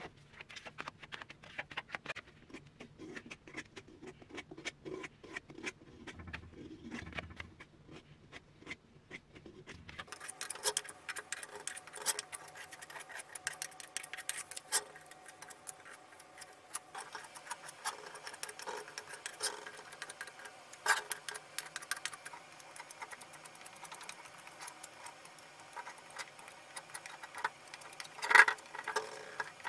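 Plastic spreader scraping through body filler, first mixing it on a board, then spreading it over a metal helmet shell. It makes a run of short scrapes and clicks that turn sharper and brighter about a third of the way in, with one louder knock near the end.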